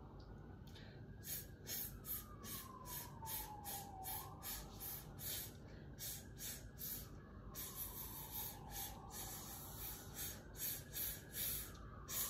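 Rhythmic short hissed exhalations, about two to three a second: a breath-support exercise in which quick pulses of the abdominal muscles push out each puff of air. A faint tone glides slowly up and down behind them.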